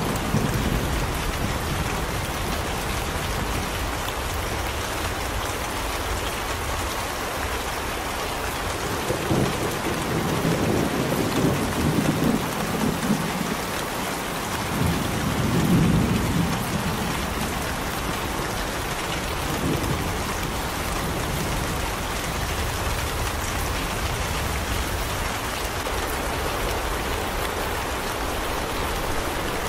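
Steady rain with thunder, low rumbles swelling up a few times around the middle.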